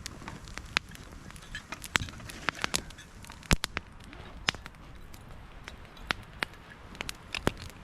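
Wood campfire crackling with irregular sharp pops, the loudest about three and a half seconds in.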